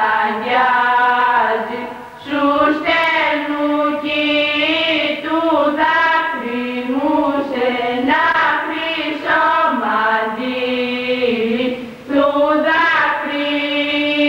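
Slow, unaccompanied female singing of a Greek folk song, with long held, ornamented notes and short breaths between phrases.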